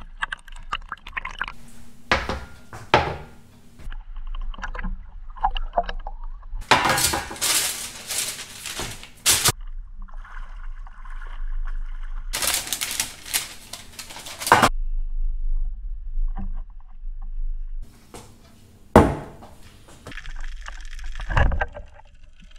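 Sea water sloshing and splashing around a camera held at the waterline as a spearfisher wades through the shallows, with irregular small splashes and two loud rushing surges of water of about two to three seconds each.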